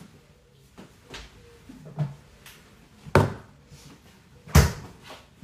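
Kitchen clatter of cupboards and dishes being handled: a few separate sharp knocks, the loudest about three and four and a half seconds in.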